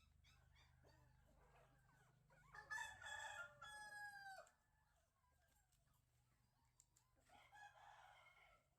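A rooster crowing: one long crow about two and a half seconds in that ends on a falling note, then a second, fainter crow near the end.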